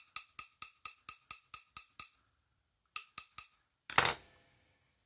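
Quick metallic taps on a vintage Yale padlock as its pins are worked out, about four or five a second for two seconds, then three more and a louder metal clatter that rings briefly.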